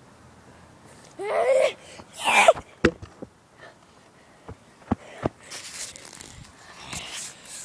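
A boy's short voiced groan, then a wheezy breath, followed by several sharp knocks and rustling as the phone is handled and picked up.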